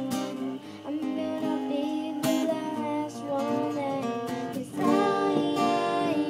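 Acoustic guitar strummed as accompaniment while a young girl sings a melody into a microphone, in a live performance.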